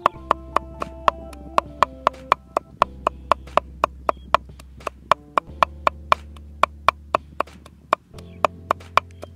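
Knife chopping red chilies on a wooden chopping board, a quick, even rhythm of about four sharp chops a second with brief pauses, over background music.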